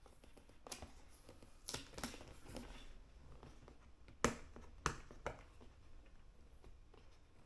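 Cardboard box and packaging being handled during an unboxing: a scattering of short sharp clicks and taps, the loudest about four seconds in and another just before five seconds.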